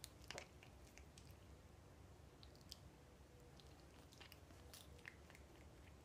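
A cat nibbling and chewing a sprig of fresh alfalfa: faint, irregular little crunching clicks, a few close together near the start and again about four to five seconds in.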